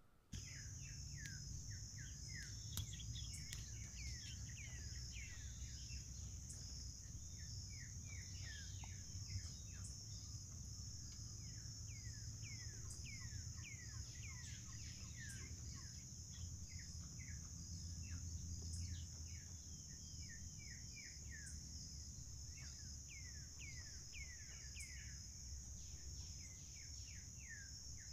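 Outdoor insect and bird chorus: a steady high insect trill, with many birds giving short falling chirps over it, and a low rumble underneath.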